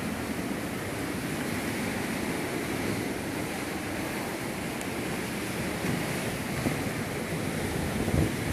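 Sea surf breaking and washing against coastal rocks, a steady rush of water.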